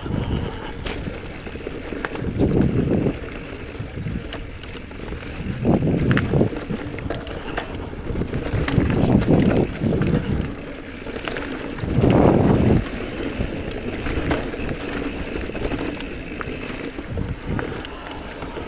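A Giant Trance E+ Pro 2 electric mountain bike being ridden over a dirt singletrack: tyres rolling and bumping over the ground, with scattered clicks and rattles from the bike. Low rumbling swells come every few seconds, the strongest about two-thirds of the way through.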